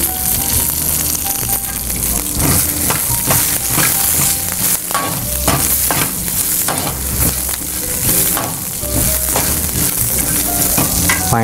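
Cumin, chana dal and freshly added green chillies sizzling in hot oil in a metal kadai, with a metal ladle stirring and scraping against the pan in short strokes over a steady hiss. This is the tempering stage of a beetroot chutney.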